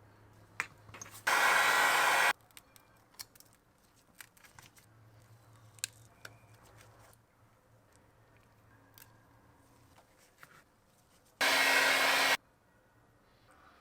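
Two bursts of about a second each of a hair-dryer-like blower noise, loud and even, the second with a steady hum under it, between light clicks and taps of small repair tools working on an iPhone's back.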